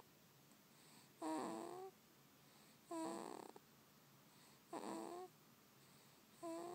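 A sleeping baby snoring: short, slightly rising pitched snores at a regular pace, about one every second and a half to two seconds, four in all, the last running on past the end.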